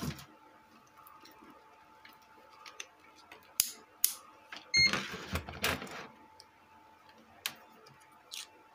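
Clicks and handling noise of a digital multimeter and its test probes being picked up and set by the circuit board, with a short electronic beep about five seconds in.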